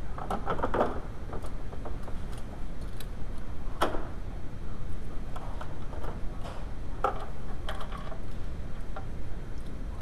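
Scattered metallic clicks and short rattles of hand tools on a coolant hose clamp as a small coolant hose is disconnected at the cylinder head of a VW 2.0L engine, with a steady low rumble underneath. There is a small cluster of clicks at the start, one sharp click about four seconds in, and a few more near seven to eight seconds.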